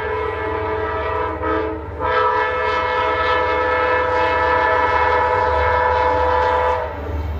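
Amtrak diesel locomotive's multi-tone horn sounding as the train approaches a station it runs through without stopping. A blast ends about a second in, and after a short break a long steady blast of about five seconds cuts off near the end.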